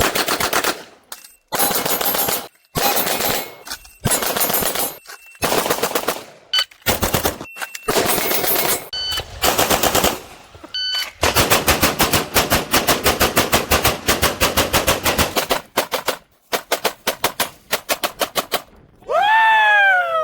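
Rapid strings of pistol shots from a Grayguns-tuned SIG P320, fired in quick bursts with abrupt breaks between them and a long fast run of about eight shots a second in the middle. Near the end a falling tone with overtones sweeps down for about a second.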